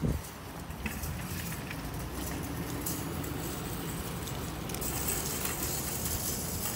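Steady low rumble and hiss of a vehicle on the move, with a short thump right at the start and the hiss growing a little brighter about five seconds in.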